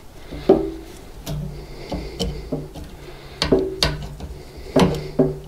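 Irregular small clicks and light knocks of a metal ear-type hose clamp and its crimping tool being worked onto a rubber fuel-tank vent hose by hand, with some rubbing between them. The clicks come about every half second, the sharpest about half a second in and near the end.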